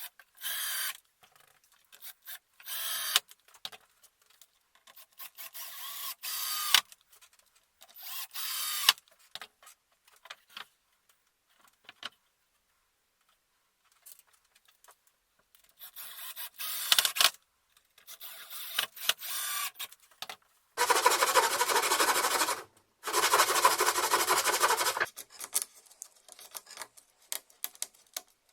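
A string of short workshop noises from woodworking, cut apart by silent gaps, followed by two steady bursts of about two seconds each from a small power tool, with a brief gap between them.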